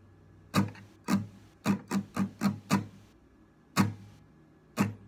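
Acoustic guitar strummed with the strings muted, so each stroke is a short, dull chuck with no chord ringing. About nine strokes in an uneven strum pattern: two single strokes, a quick run of five, then two more.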